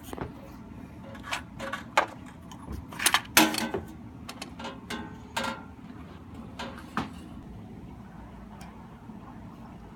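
Hand tools knocking and clanking on metal plumbing fittings, with about eight sharp strikes in the first seven seconds, over a steady low rumble.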